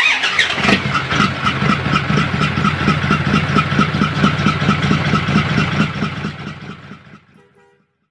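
Truck engine starting with a sudden burst and then running with an even pulsing beat, fading out over the last couple of seconds.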